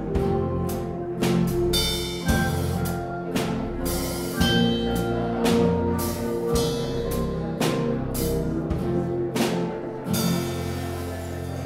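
Church organ playing sustained chords, with sharp percussive strikes about once a second. About ten seconds in, it settles into a long held sound.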